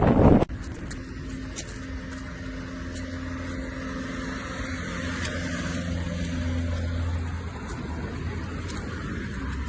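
Wind on the microphone for the first half second, then a sudden cut to a steady low hum like a running vehicle, with faint held tones.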